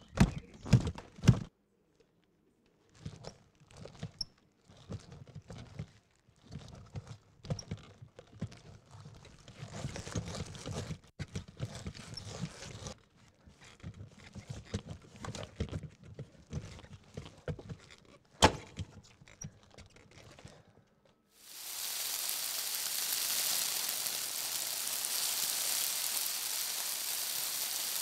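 Rubber tyres thudding and knocking as they are lifted, dropped and stood on, in uneven irregular knocks with one sharp loud knock about two-thirds of the way through. About three-quarters of the way in, a steady hissing noise takes over.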